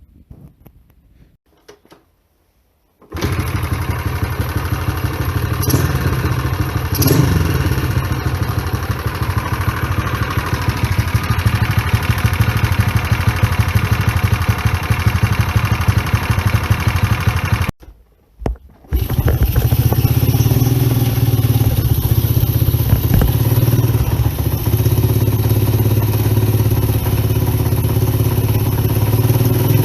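Honda Little Cub's 49 cc four-stroke single-cylinder engine running steadily, coming in about three seconds in. It drops out briefly about eighteen seconds in, then carries on a little louder.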